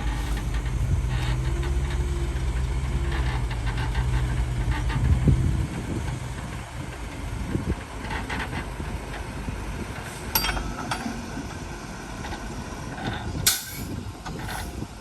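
Diesel engine of heavy earthmoving machinery running steadily, then dropping away about five and a half seconds in. After that come scattered knocks and scraping, with one sharp loud bang near the end.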